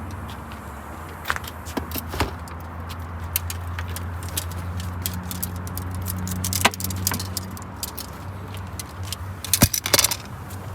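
Car engine and road noise heard inside the cabin of a moving car, a steady low drone that rises a little in pitch partway through. Loose items in the car rattle and click throughout, with louder jangling near the end.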